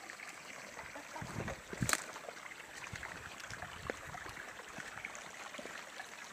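Shallow stream running over rocks, a steady babble of water. About two seconds in there is a brief low rumble, then one sharp knock.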